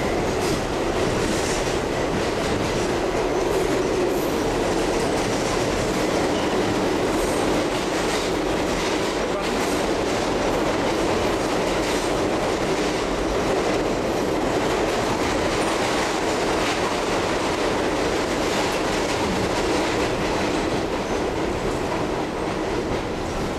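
Subway train running, heard from inside the car: a steady, loud rumble and clatter of the wheels on the track, with faint clicks.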